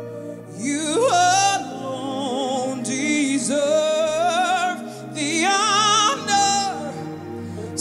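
Woman singing a gospel worship song live into a microphone, in several long phrases with wide vibrato, over held backing chords.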